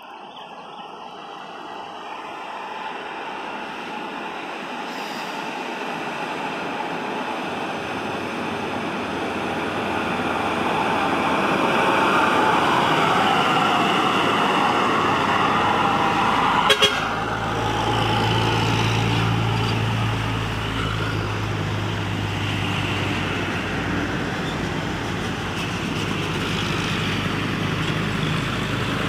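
Heavy road vehicles passing close: an engine draws nearer and grows louder over the first twelve seconds, with a vehicle horn sounding. A short sharp knock comes about seventeen seconds in, followed by the low, steady drone of a heavy vehicle's engine.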